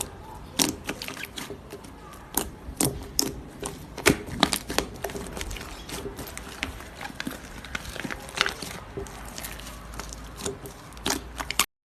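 Slime being squeezed and kneaded by hand, making irregular sticky pops and crackles, several a second. It cuts off suddenly near the end.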